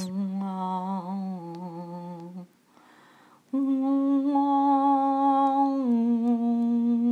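A person humming a slow tune in long held notes that step down in pitch, with a pause of about a second partway through before a higher note starts.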